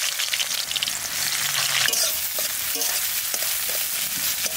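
Sliced red onions frying in hot oil in an aluminium kadai, a steady sizzle. From about two seconds in, a metal spatula stirring them clicks and scrapes against the pan now and then.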